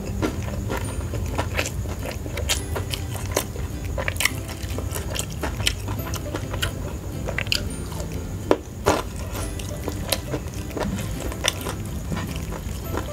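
Close-up chewing of crispy fried chicken: repeated crunches and wet mouth smacks, with two louder smacks about two-thirds of the way through.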